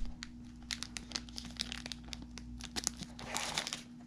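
Metallized plastic snack wrappers crinkling as they are handled, in scattered crackles, with a denser burst of crinkling and paper rustling about three and a half seconds in as the booklet is picked up.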